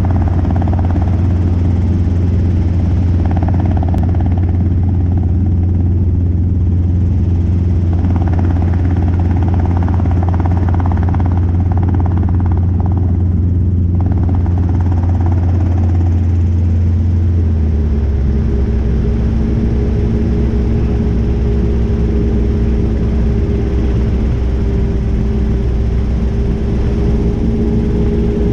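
Robinson R22 helicopter in a straight-in autorotation, heard from inside the cabin: a steady low drone of the main rotor and four-cylinder piston engine. About two-thirds of the way through the sound shifts: the low drone drops in pitch and a higher steady engine tone comes in.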